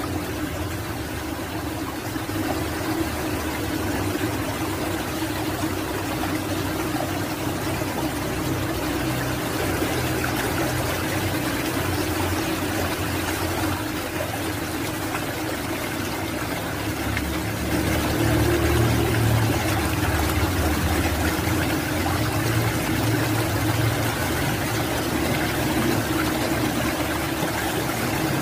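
Steady rush of water flowing through a stone culvert, with a low rumble underneath, a little louder in the second half.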